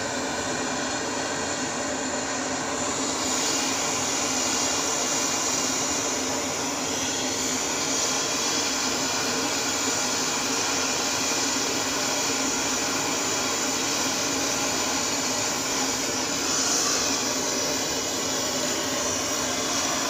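Handheld butane torch burning steadily with a hissing rush of flame, heating a copper tube joint until it glows red, ready for soldering. The hiss gets a little brighter about three seconds in.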